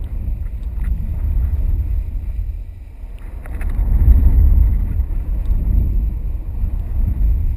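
Wind buffeting the microphone of a camera mounted on a kite in flight: a loud, low rumble that dips about three seconds in and swells strongest a second later.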